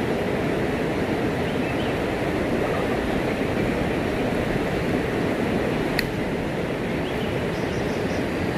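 Steady rushing of river water, even and unbroken, with a single sharp click about six seconds in and a few faint high chirps near the end.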